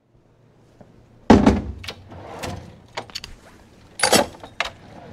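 Metal clunks and knocks from a service truck's tool compartment as it is worked in. The loudest comes about a second in, followed by a string of sharper knocks.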